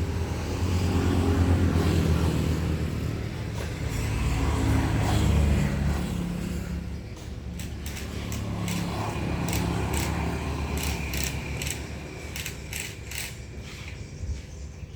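Engine of a home-built farm machine running, louder and working harder in the first half, then easing off. From about the middle on, a series of sharp metallic clicks or knocks sounds over it.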